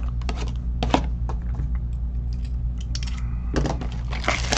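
Hands unwrapping a sealed trading-card box: scattered clicks and taps of plastic wrap and cardboard, growing into a dense crinkle near the end, over a steady low hum.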